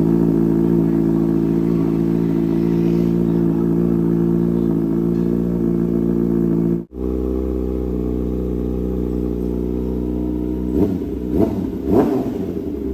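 Kawasaki ZX-6R 636 inline-four idling steadily through a straight-through exhaust, its catalytic converter replaced by an SC-Project link pipe. Near the end it is revved in three quick throttle blips.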